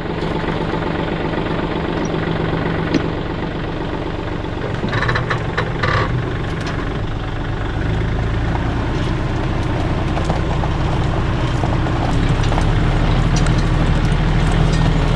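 Tractor engine running steadily, with a short clatter about five seconds in and running a little louder after about twelve seconds.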